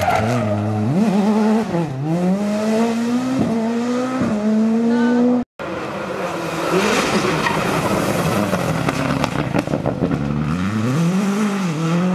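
Skoda Fabia rally car at full throttle, its engine note climbing in steps through quick upshifts as it accelerates away. After an abrupt cut, another rally car's engine comes in, dipping and rising again near the end as it brakes and accelerates.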